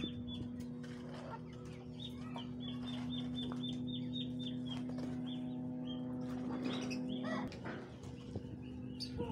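Hens clucking and small birds chirping in a poultry yard, with a few dull strikes of a hoe digging into soil. Under it runs a steady hum that cuts off suddenly about three-quarters of the way through.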